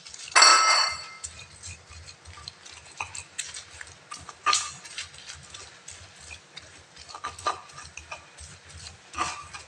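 Stone pestle grinding chilies, shallots and garlic into a coarse paste in a stone mortar (cobek and ulekan): irregular scraping, clicking and knocking of stone on stone, with low repeated thuds from the strokes. About half a second in there is a brief, loud high-pitched sound.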